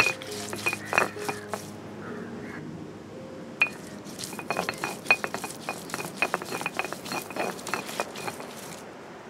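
Stone roller crushing dried red chillies and shallots on a flat stone grinding slab: repeated knocks and scraping of stone on stone, sparse at first, then quickening into a busy run of strokes in the second half.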